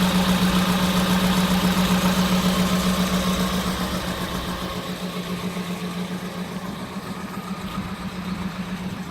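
Daihatsu 1.3-litre 16-valve four-cylinder engine idling roughly, misfiring on cylinder number 4. It grows quieter over the last few seconds.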